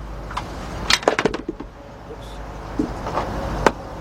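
Scattered sharp clicks and light knocks of hand work on the engine: a cluster of several about a second in and a few more near the end, the last one the sharpest. They sound as the ignition coils are unclipped and pulled from the engine, with a low steady rumble underneath.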